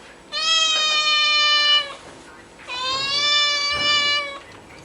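Cat meowing: two long, drawn-out meows, each held at a steady high pitch for about a second and a half and dipping slightly at the end.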